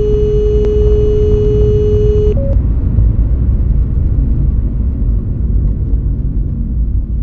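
Steady low rumble of a car driving, heard from inside the cabin: engine and road noise. A steady high tone sounds over it for the first two seconds or so, followed by a brief higher note.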